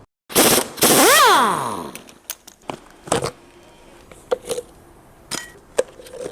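Impact wrench hammering briefly, then running again, its motor winding down in pitch as the trigger is released, while loosening the top nut of a shock absorber to free its worn top mount. A few metal clinks and knocks of parts being handled follow.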